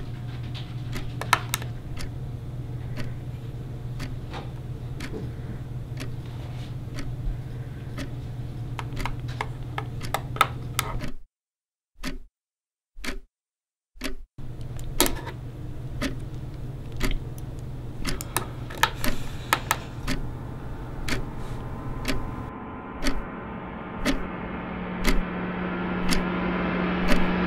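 Irregular sharp clicks and taps, like a pen tapping on a desk, over a steady low hum. The sound drops out briefly near the middle. After that, a wall clock ticks about once a second while a rising noise swells over the last few seconds.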